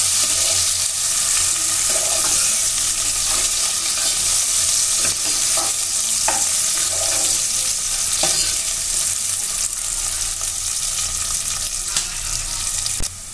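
Sliced carrots, capsicum, cashews and raisins sizzling in hot oil in a pressure cooker while a spoon stirs them, with scattered scrapes and clicks of the spoon against the pan. The sound drops quieter just before the end.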